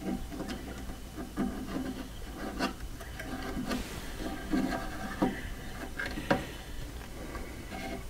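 Close, irregular rubbing and rustling handling noise, with a few sharp clicks scattered through, as hands work a thin hookup wire against a dollhouse wall.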